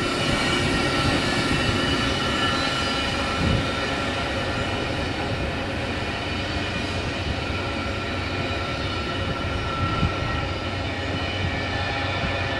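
A train rolling past close by: steady wheel-and-rail rumble with high, steady squealing tones from the wheels on the rail. Two short knocks come through, one about a third of the way in and one near the end.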